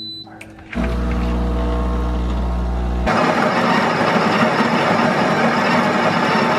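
Breville espresso machine's built-in burr grinder motor starts about a second in with a steady hum. About three seconds in the hum turns to a louder, rougher grinding noise as beans are ground into the portafilter.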